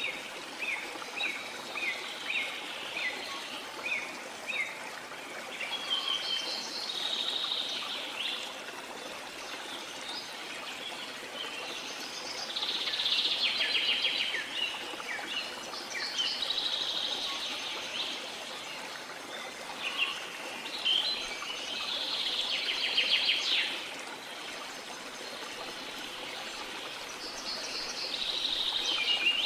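Birds singing over the steady sound of running water. A run of short chirps, about two a second, gives way to trilled phrases every few seconds.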